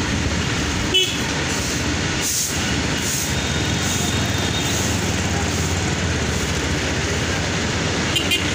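Steady engine and rushing wind noise from a motorcycle on the move, with a brief horn toot about a second in.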